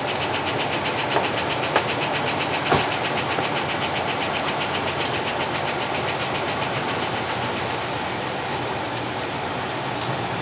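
A vehicle engine running steadily, with a fast, even rhythmic ticking over it and a couple of short clicks in the first few seconds.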